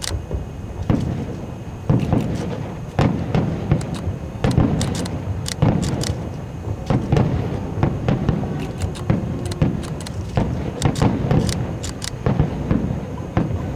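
Fireworks display: aerial shells bursting one after another, a dense run of sharp cracks, several a second, over deep rolling booms.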